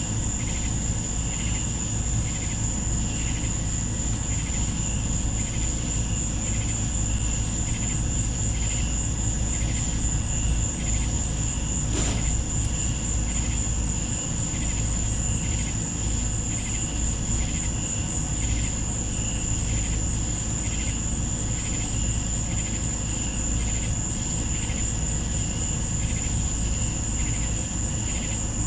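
Night insect chorus: a steady, high-pitched trill of crickets with a slower pulsing chirp about one and a half times a second, over a low steady rumble. A single sharp click about twelve seconds in.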